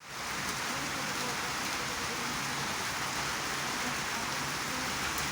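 Rain falling steadily, an even hiss that neither builds nor fades.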